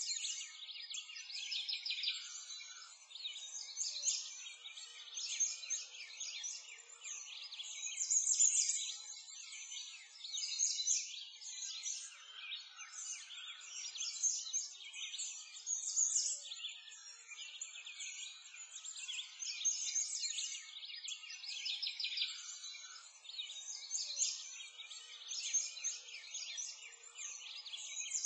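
A dense chorus of small birds chirping, all high-pitched with nothing low beneath it, swelling and easing every second or two.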